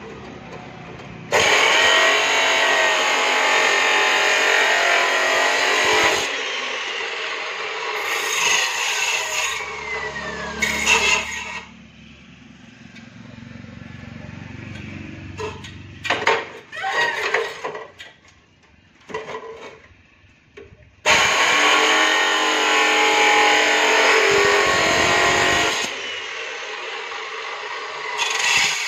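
HiKOKI abrasive cut-off saw cutting through steel flat bar twice, each cut a loud, harsh grinding of about five seconds. Between the cuts come a lower hum from the saw's motor and sharp metal clanks as the bar is handled and set in the vise.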